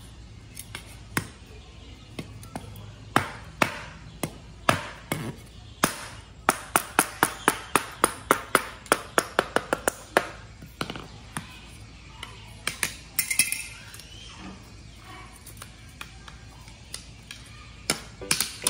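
A series of sharp knocks or chops, scattered at first, then a quick run of about three a second in the middle, then scattered again.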